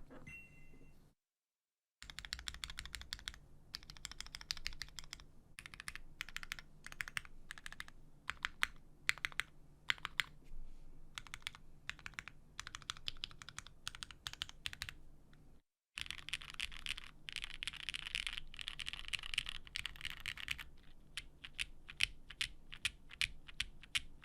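Typing on a Carolina Mech Palmetto mechanical keyboard with lubed, diamond-polished Cherry MX Black linear switches, GMK keycaps and a carbon-fibre half plate on O-rings: a fast, uneven run of key clacks that stops briefly near the start and again about two-thirds of the way through.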